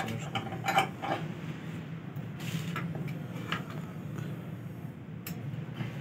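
A few sparse, irregular light clicks and knocks over a steady low hum.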